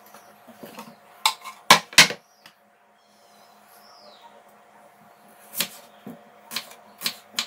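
A few sharp knocks, the loudest about two seconds in, as peeled onions are handled and set into a plastic tub. From about five and a half seconds a kitchen knife begins cutting an onion on a wooden cutting board, striking the board about twice a second.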